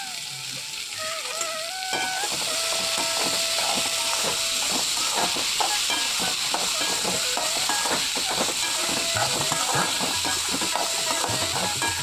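Diced carrots and green beans sizzling in a hot pan, the sizzle coming up about two seconds in, with a spatula stirring and scraping them over and over. Background music with a melody plays underneath.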